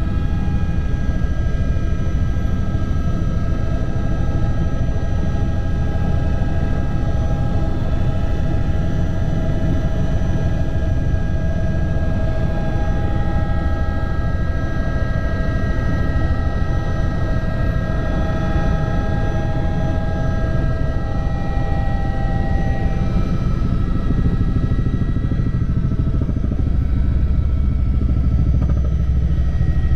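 Helicopter rotor and turbine running steadily in flight, heard from inside the cabin: a loud, fast low beat from the blades under several steady whining tones. The low rumble grows a little stronger near the end.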